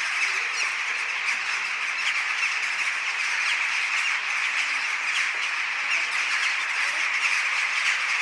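A large flock of birds calling all at once: a steady, dense mass of many overlapping squawking calls.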